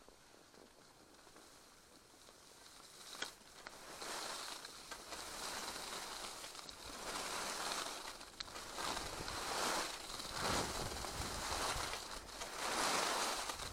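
Skis sliding and scraping over groomed snow during a run, with wind noise on the helmet microphone. The hiss grows louder from about four seconds in as speed picks up, swelling and easing about once a second with the turns.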